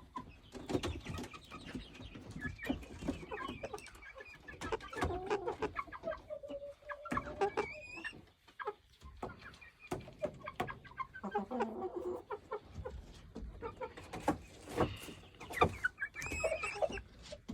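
A flock of chickens clucking and murmuring as they settle to roost, with scattered short calls and taps.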